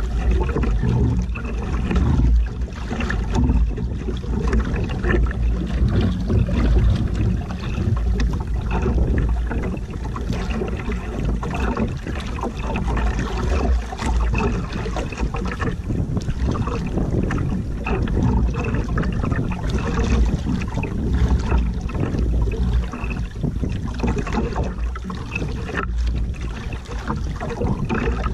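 Wind buffeting the microphone over open sea, with water splashing and sloshing against the hull of an outrigger boat.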